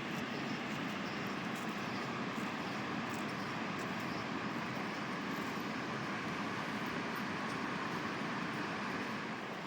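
Steady rushing of river water, an even noise with no change in level.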